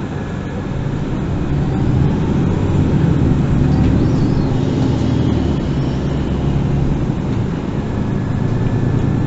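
Interior sound of a MAN NG 363 Lion's City GL articulated city bus under way, its six-cylinder diesel engine running steadily. The engine grows louder over the first two seconds, then holds.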